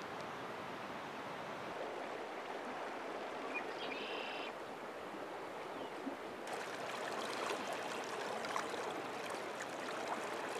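Stream water rushing steadily over rocks, turning brighter and splashier from about six and a half seconds in.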